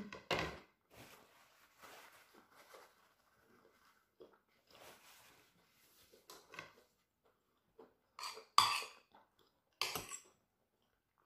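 A fork and knife clinking and scraping against a plate a few times, the loudest near the end, with faint chewing in between.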